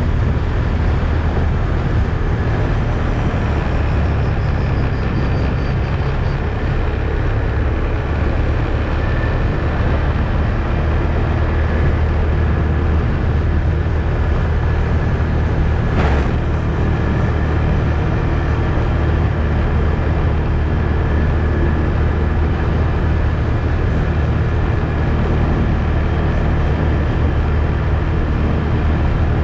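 ATV engine running steadily while riding, a low, even drone that holds the same pitch throughout. One sharp knock about sixteen seconds in.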